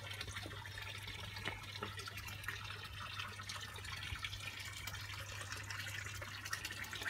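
Water trickling and splashing steadily into a garden koi pond, with a low steady hum underneath.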